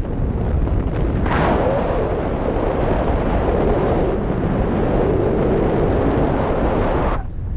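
Airflow in paraglider flight buffeting the camera's microphone: a loud, steady rush of wind noise that swells about a second in and drops off briefly near the end.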